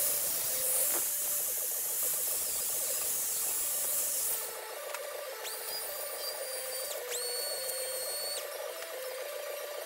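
Handheld angle grinder grinding sheet steel, a harsh hissing grind for about four and a half seconds. The grinder is then run twice in short bursts, a steady high whine that spins up and cuts off each time.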